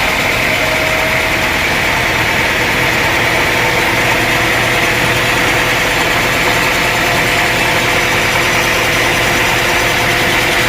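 Sawmill engine running steadily under a constant machine drone, with a steady high whine and no change in speed.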